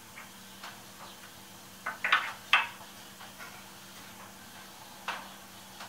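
Metal gauge knocking and clicking against the bronze-faced slot of a shaper rocker arm as it is tried by hand for fit, a few sharp taps with the loudest cluster about two seconds in and one more near the end, over a steady low hum. The gauge will not go in: the slot is still a fraction undersize.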